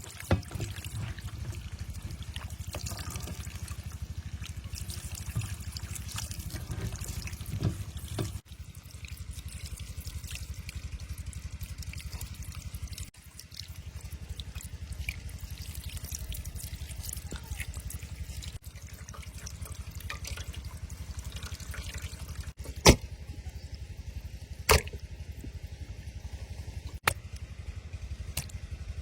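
Water trickling and dripping over a steady low rumble, with three sharp knocks in the last third.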